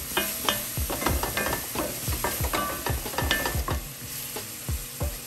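A spatula stirring and scraping through a mushroom cream sauce in an enamelled cast-iron pan, in quick irregular strokes, while the sauce sizzles as cream is poured in.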